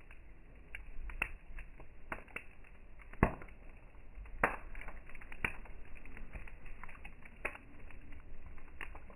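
Firewood burning in a campfire, crackling with irregular sharp pops, the loudest about three, four and a half, five and a half and seven and a half seconds in.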